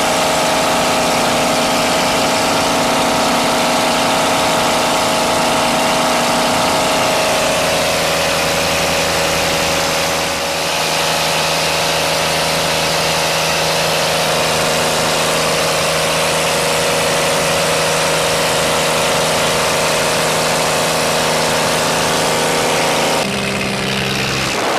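Cabin noise of a small propeller jump plane in the climb: a steady engine and propeller drone with wind rushing in through the open, doorless side. Near the end the engine note changes and the rush eases a little.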